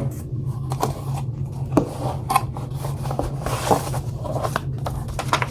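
Laptop box packaging being handled: cardboard and paper rubbing and rustling, with scattered small clicks and knocks, over a steady low hum.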